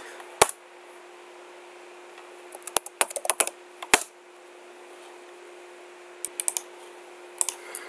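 Computer keyboard keystrokes. One key press comes shortly in, then a quick run of keys about three seconds in, typing a password and ending with the Enter key at about four seconds, and a few more taps near the end. A steady hum runs underneath.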